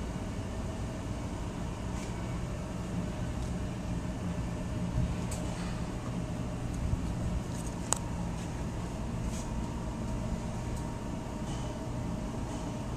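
A motor running with a steady drone, with a few short clicks over it, the sharpest about eight seconds in.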